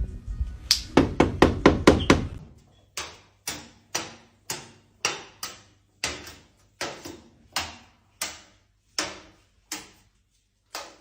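A series of sharp knocks on a hard surface, each ringing briefly. The knocks come in a quick run at first, then slow to about two a second.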